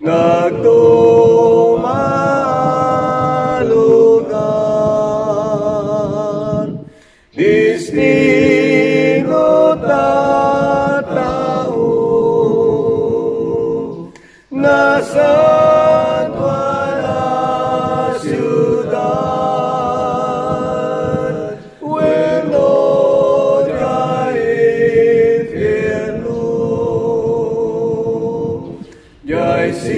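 One man's voice multitracked into a four-part a cappella choir, singing a slow Ilocano hymn in long held notes. The singing comes in four phrases, each broken off by a brief pause.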